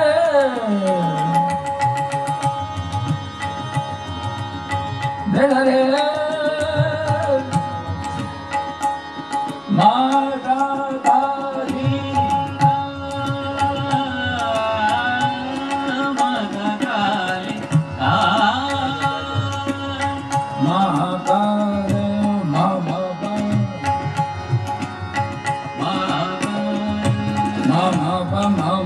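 Live Hindustani classical bhajan: a male voice sings long phrases that glide up and down, over tabla and harmonium with a steady drone beneath.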